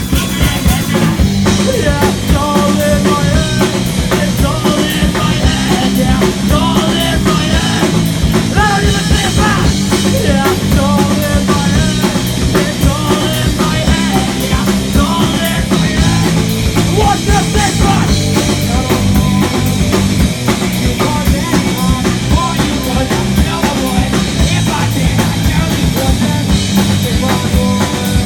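A rock band playing live: a steady, driving drum-kit beat under guitar and voice.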